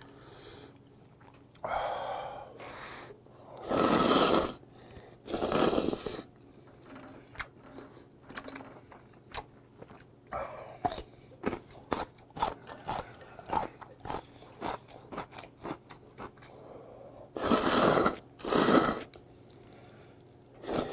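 A man slurping hot ramen noodles in several loud, long slurps, about two seconds in, twice more a few seconds later and twice more near the end, with many small wet chewing and mouth sounds in between.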